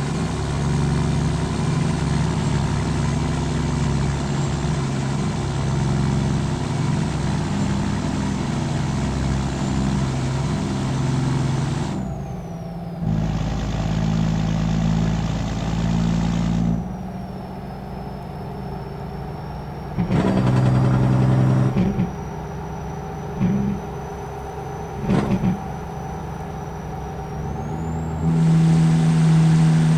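Volvo FH truck's inline-six diesel running through a straight-pipe exhaust with no muffler. The level drops and jumps abruptly several times, with a few short louder bursts near the middle and a louder stretch near the end.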